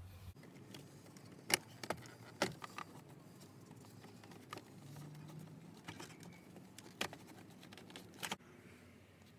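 A handful of sharp plastic clicks and knocks, spaced irregularly, as the Toyota Camry's dash trim around the instrument cluster is handled and pulled free.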